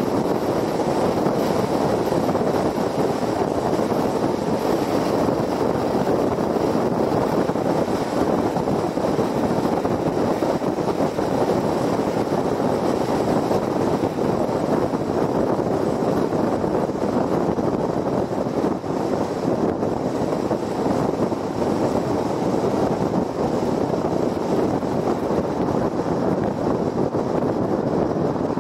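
Steady road noise of a car cruising at highway speed: an even rush of tyres on the pavement and wind, with no change in level.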